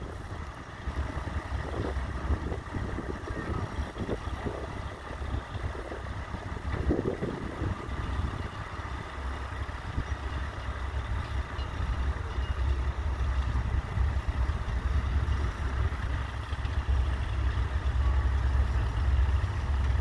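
Ferguson TEF20's four-cylinder diesel engine running steadily under load as the tractor pulls a mounted plough through the soil, with a deep, even low rumble.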